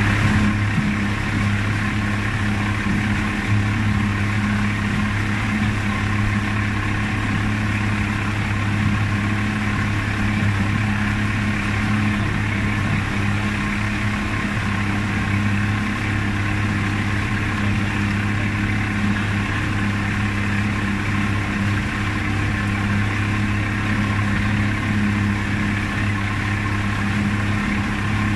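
Small boat's engine running steadily with a constant hum, unchanging throughout.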